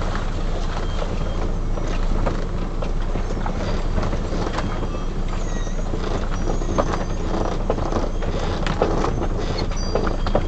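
Motorhome on the road: steady engine and road noise, with irregular clicks and rattles throughout.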